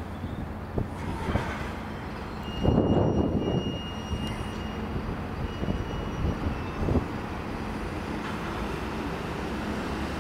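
Direct Rail Services Class 68 diesel locomotive, with its Caterpillar V16 engine, running slowly while hauling a container train. It makes a steady engine drone that grows louder briefly about three seconds in, with a thin high whine lasting a few seconds.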